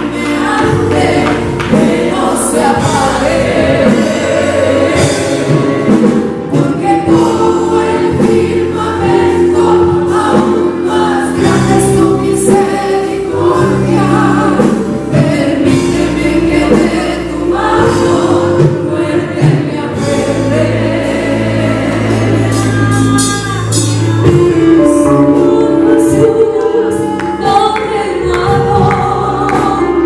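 A woman singing a Spanish-language gospel hymn into a microphone, backed by a live church band.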